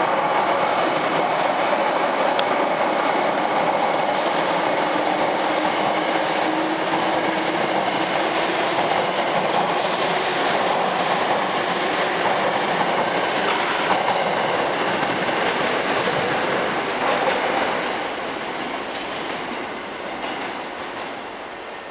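Hankyu 3000 series electric train, a rheostatic-control unit, pulling out of the station and running close past: steady wheel and motor noise that fades from about eighteen seconds in as the train draws away.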